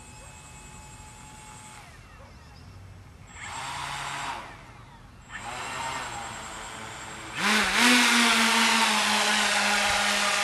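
Twin motors and propellers of a radio-controlled airship whirring in two short spells, then throttling up sharply about seven seconds in to a loud, steady whine.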